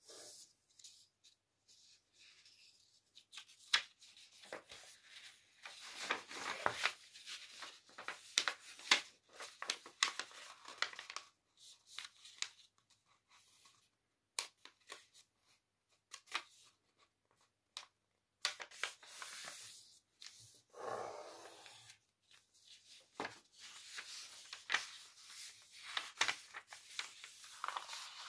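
A sheet of paper being folded by hand: rustling and crackling as it is handled and slid, with sharp crisp snaps as the folds are creased flat, in spells separated by short pauses.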